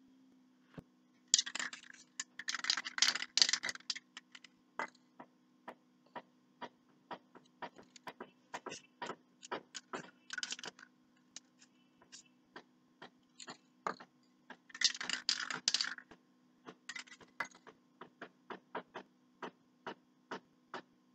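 Newspaper crinkling and crackling as it is pressed into wet spray paint and peeled off the board, in scattered sharp clicks with two dense bursts of crackle, over a faint steady hum.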